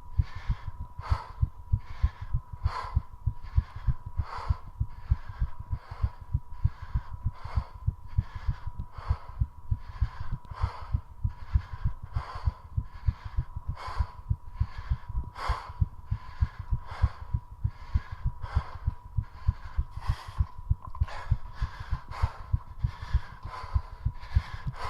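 Very fast human heartbeat: rapid, evenly spaced low thumps with heart rate driven up by squat exercise. Heavy breathing comes about once a second, and a thin steady high tone runs underneath.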